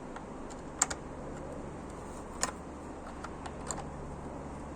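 A few sharp, irregular clicks and light ticks of a hand tool working the Torx T-25 screws that hold a car's fog light, over a steady low hum.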